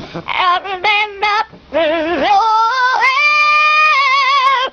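Talking parrot singing in a human-like voice: a few short wavering notes, then a rising glide into a long held, quavering note that breaks off near the end.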